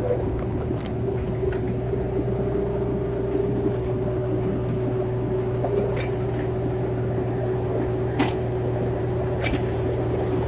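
Excavator engine running steadily: a low hum with a steady whine above it, and a few sharp clicks or knocks, the loudest about eight seconds in.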